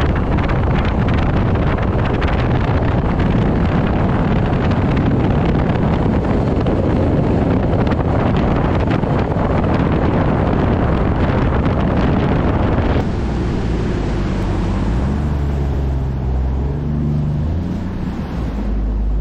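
Fishing boat underway on the lake, with heavy wind rushing over the microphone. About thirteen seconds in the rushing drops abruptly, and a low engine drone with shifting pitch comes through.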